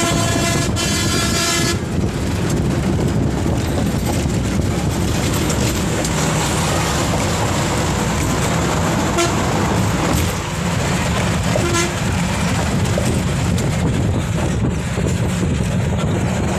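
Steady rumble and rush of a bus travelling at speed, heard from inside the bus. A vehicle horn sounds at the start and cuts off about two seconds in.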